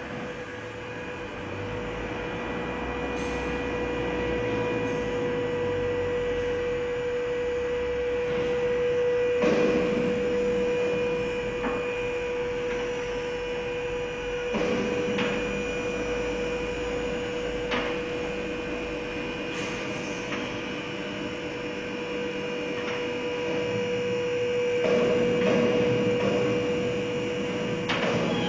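Electric hydraulic power unit of a two-post car lift running with a steady hum while it raises a car, broken by a few sharp clacks along the way.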